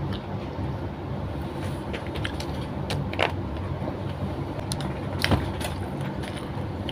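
Mouth sounds of a person eating rice and chicken by hand: chewing, with a few sharp lip smacks, the clearest about three seconds in and again past five seconds. A steady low rumble runs underneath.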